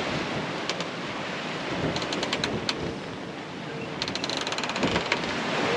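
Steady rush of wind and water on a sailing yacht under way, with bursts of rapid mechanical clicking about two seconds in and again about four seconds in.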